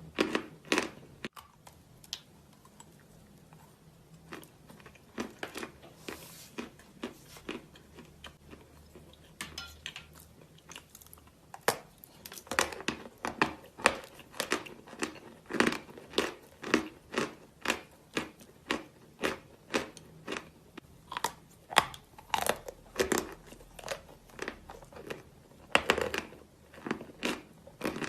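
Close-miked chewing of soft natural chalk: a run of crisp crunches, about two to three a second, sparse and faint for the first few seconds and then dense.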